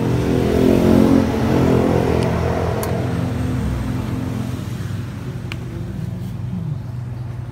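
A motor vehicle passing close by, loudest in the first couple of seconds, its engine note falling as it fades away, over a steady low mechanical hum.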